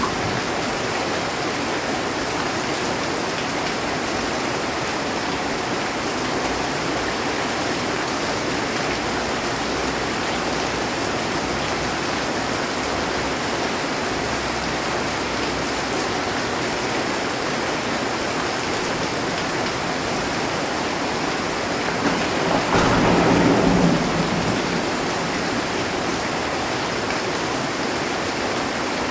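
Heavy rain drumming steadily on a metal roof. About three-quarters of the way through comes a short, louder thunderclap.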